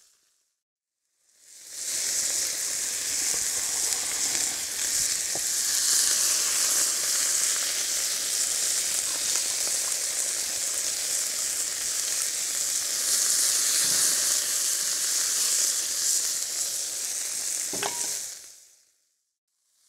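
Pork fillet pieces searing in hot oil in a wok: a steady, high sizzle that fades in after a second or so of silence and fades out near the end, with one short knock shortly before it fades.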